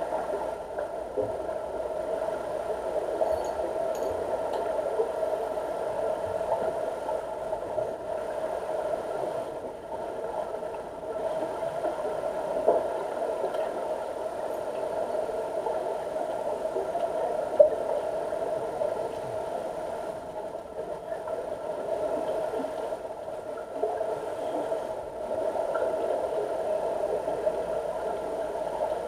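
Steady mechanical hum heard underwater in a diving pool, with a couple of short sharp clicks, the loudest about two-thirds of the way through.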